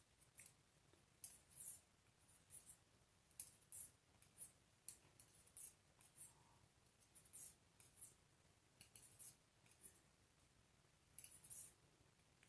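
Near silence with faint, irregular clicks of knitting needles as stitches are knitted one after another across a row.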